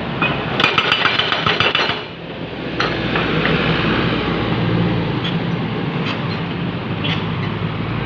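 Jonyang JY623E excavator's hydraulic breaker hammering in rapid blows for about a second and a half, starting about half a second in, then stopping. The excavator's diesel engine keeps running steadily throughout.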